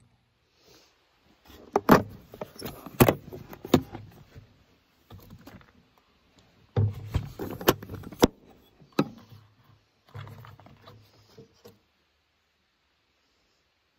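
Things being handled and set down on a metal checker-plate surface: a series of sharp clacks and knocks in two bursts, about two seconds and seven seconds in, with lighter rustling and shuffling between them.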